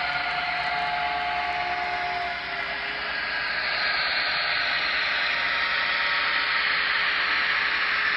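Broadway Limited Imports N scale sound-equipped diesel locomotive running, its onboard speaker giving a hissy, tinny engine sound mixed with wheel noise on the track, which grows a little louder over the second half.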